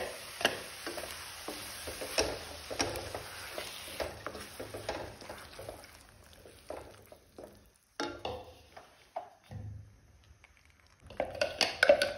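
Spatula stirring and scraping tomato purée into sizzling onion-and-pea masala in a kadhai. The frying hiss fades after a few seconds as the purée goes in, leaving sparser stirring strokes, and the scraping grows loud again near the end.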